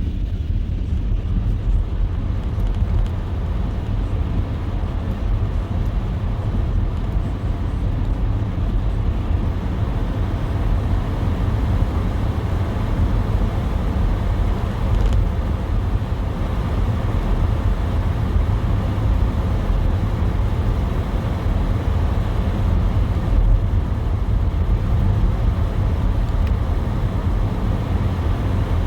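Steady low rumble of a car driving on a snowy road, engine and tyre noise running evenly with no sharp events.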